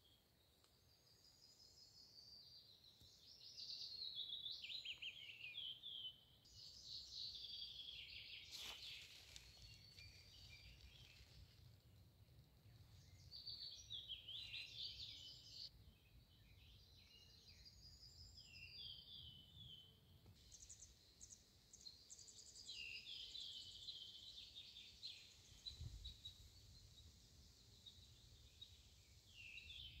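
Faint songbirds singing in a forest, a string of short trilled phrases repeating through the whole stretch, with a low wind rumble underneath. A single brief click about nine seconds in.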